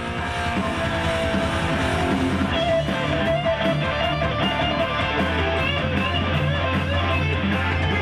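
Rock music led by strummed electric guitar, with a steady beat of regular hits and a held low bass note in the second half; no vocals.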